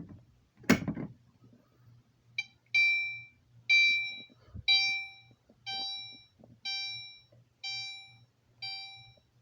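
A sharp click, then about two seconds later a fire alarm horn set to chime starts sounding: one electronic chime about every second, each dying away.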